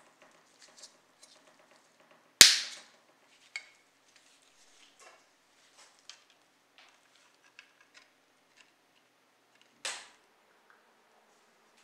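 Small plastic and metal scale-model car parts being handled and fitted together by hand. There are faint light clicks throughout and two sharp clacks, the loudest about two and a half seconds in and another near the end.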